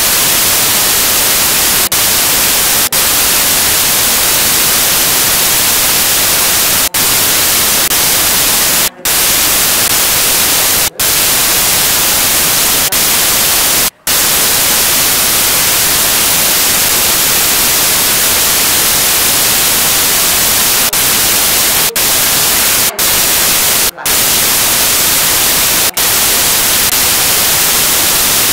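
Loud, steady static hiss with no signal on it, brightest in the treble, broken by about ten brief dropouts.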